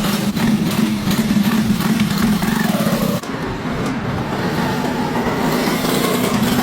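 Restored 1979 Honda 110cc motorcycle engine running steadily, with a brief dip about three seconds in.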